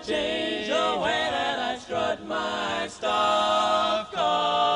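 Male barbershop quartet singing a cappella in close four-part harmony. The chords are held in short phrases with brief breaks between them.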